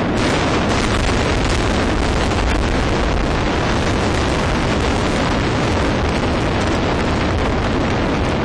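Multi-storey building collapsing in an explosive demolition implosion: a steady, loud rumble of falling structure and debris, mixed with wind noise on the microphone.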